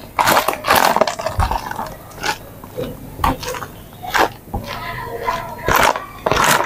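Raw chicken pieces and ice cubes being tossed and pressed by hand in flour in a plastic tub: irregular wet slaps and squelches, about eight in a few seconds.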